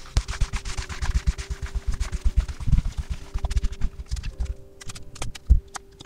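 Tarot cards being slid and mixed by hand across a velvet cloth: a dense run of soft rubbing and light knocks, turning sharper and clickier in the second half as cards are handled and laid down.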